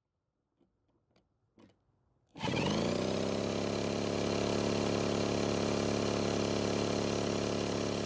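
After a couple of seconds of near silence with a few faint clicks, a drill spins up quickly and runs steadily, cranking a RedMax backpack blower's two-stroke engine by its flywheel nut. The engine does not catch even with fuel poured straight into the carburettor, which points away from a fuel problem.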